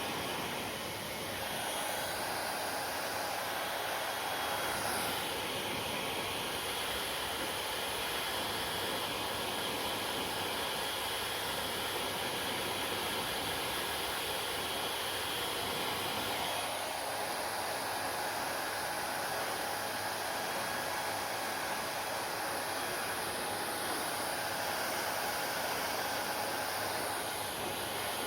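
Hair dryer running steadily: a continuous hiss of blown air with a faint motor whine, its tone shifting slightly a few times.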